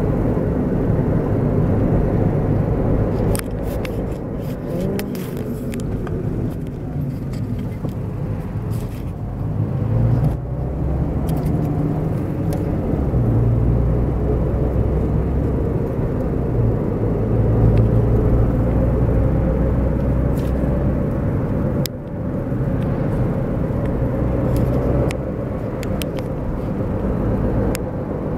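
Car engine and road noise heard inside the cabin of a moving car: a steady low rumble whose engine note shifts up and down with the speed. A few light clicks come through, the clearest about two-thirds of the way in.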